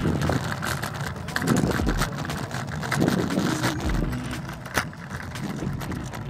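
Hard 200 mm wheels of a Micro Flex kick scooter rolling over coarse asphalt: steady road noise, with a low thump about every two seconds.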